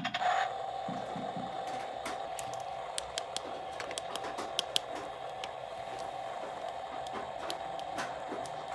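Small plastic toy pieces clicking and tapping over a steady electronic hum with a faint hiss.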